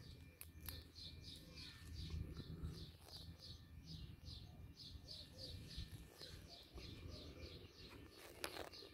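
A small bird calling faintly in a steady run of short, high chirps, about three a second, over a low rumble.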